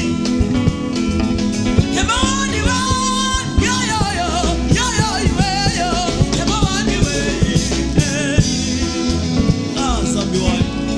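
Live band playing an upbeat gospel song with drums, bass and guitar on a steady beat, as a male singer sings the melody into a microphone.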